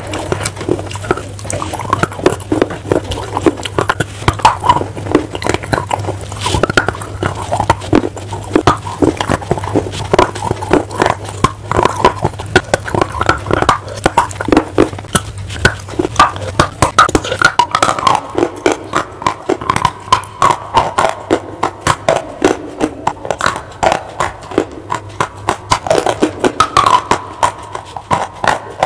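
Crunching bites and chewing of baked clay bars close to the microphone: many sharp crunches in quick succession. A low steady hum runs under the first half.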